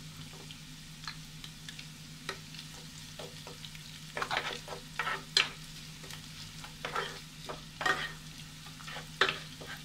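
Spatula stirring and scraping through sliced shallots and curry leaves sizzling in hot coconut oil in a nonstick pan, as turmeric powder is mixed in. The oil sizzles faintly under scattered scrapes and taps of the spatula, which come more often from about four seconds in. A steady low hum runs underneath.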